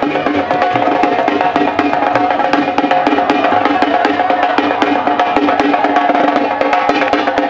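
Dhak, the large Bengali barrel drum, beaten with sticks in a fast, dense rhythm, over a steady sustained tone.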